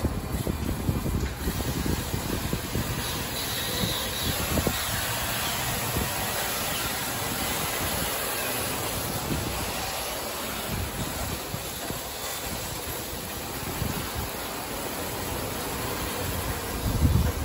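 LaserWash M5 touchless car wash running: water hissing steadily from the spray arm as the overhead gantry travels around the car, with a low rumble from its rolling carriage and a louder bump near the end.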